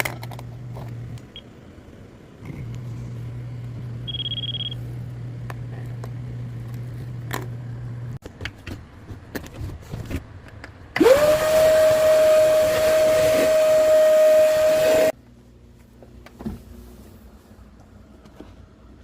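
A steady low electric hum with one short electronic beep, then a loud electric motor spins up quickly to a steady whine, runs for about four seconds and cuts off suddenly.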